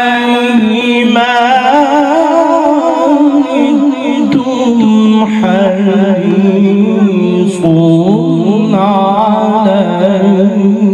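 A man reciting a Quranic verse in the drawn-out melodic style of tilawat, holding long ornamented notes that waver and glide in pitch, with a short break for breath about four seconds in.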